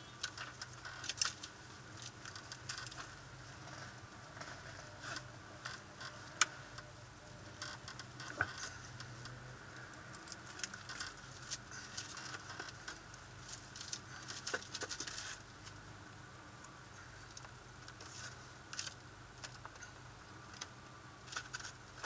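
Irregular light ticks and taps inside a stationary car's cabin, some sharper than others, over a faint low steady hum.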